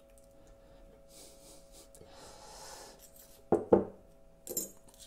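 Quiet kitchen with faint rubbing as oiled fish fillets are handled in a dish, then two quick knocks about three and a half seconds in and a lighter one a second later as a spoon and salt are picked up for seasoning.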